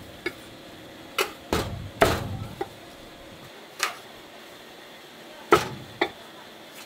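A cleaver chopping roasted chicken on a wooden chopping block: several sharp chops at irregular spacing.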